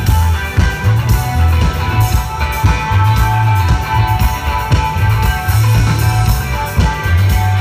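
Live rock band playing loud: electric guitar over a bass line that moves note to note and steady drum hits, heard from within the crowd.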